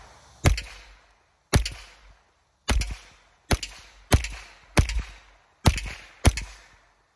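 Winchester Wildcat semi-automatic .22 LR rifle firing a string of eight shots in quick succession, a little under a second apart, each a sharp crack with a short decaying tail.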